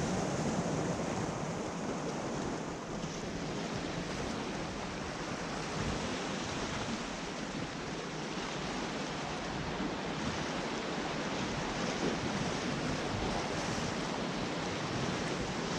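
Sea surf washing steadily against a rocky shore, with some wind on the microphone.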